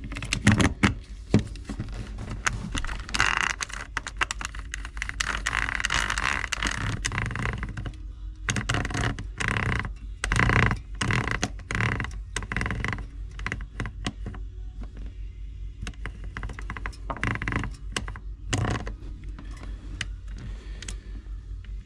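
Small metal parts of an opened power-tool gear housing being handled and turned by hand: irregular clicks and clacks with stretches of scraping and grinding from the gear, which is badly worn. A faint steady low hum sits underneath.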